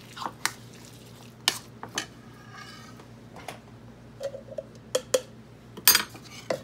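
Metal spoon clinking and scraping against a ceramic bowl while mixing tuna with mayonnaise: a string of sharp, irregular clinks, the loudest about six seconds in with a brief ring.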